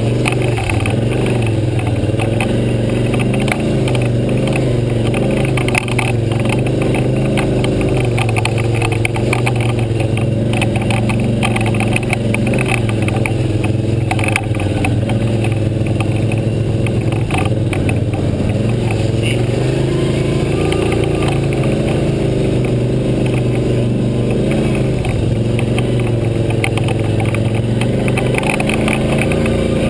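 ATV engine running while riding over a rough dirt trail, its pitch rising and falling with the throttle, with frequent small knocks and rattles from the machine over the bumps.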